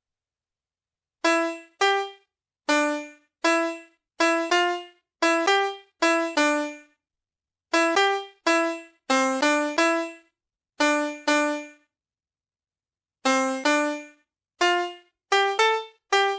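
Electronic piano notes from the VTech Willis card laptop toy's colour keys, played one at a time as a self-composed melody: short separate beeping tones, often in quick pairs, with a pause a little past the middle.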